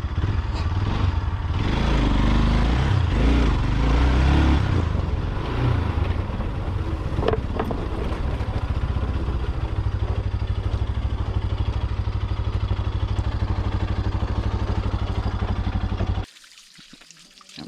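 A motor running steadily with a fast even pulse, uneven for the first few seconds and then smooth, cutting off abruptly about 16 seconds in.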